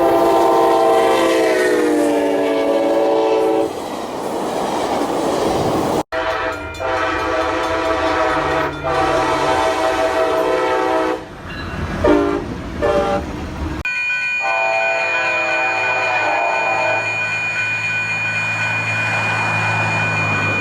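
Altamont Commuter Express locomotive air horns in three separate clips cut together. First comes a long chord falling in pitch as the train passes, followed by the rush of the passing train. Then a run of short and long blasts, then another blast over a low engine hum and a steady high tone.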